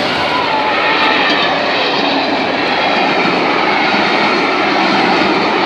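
Train passing close by at speed: a loud, steady rumble and rushing noise of wheels on rails.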